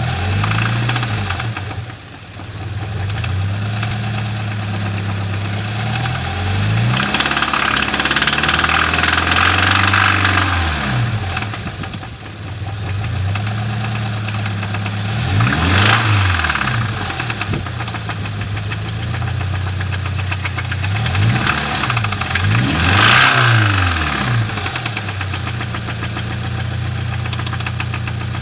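2013 Subaru BRZ's 2.0-litre flat-four engine idling and blipped several times, each rev rising and falling back to idle, with a ticking sound from the engine.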